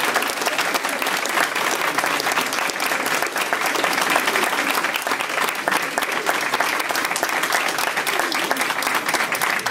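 Crowd applauding: many people clapping at a steady level.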